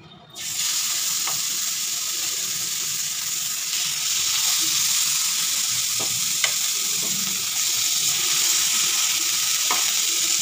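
Marinated fish pieces sizzling on a preheated tawa. The hiss starts suddenly about half a second in as the fish goes onto the hot pan and then holds steady, with a few light taps.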